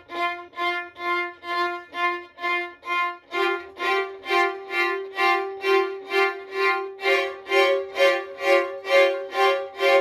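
Multitracked violins playing a repeated figure of short bowed notes, about three a second. The harmony shifts about three seconds in, and a higher part joins about seven seconds in.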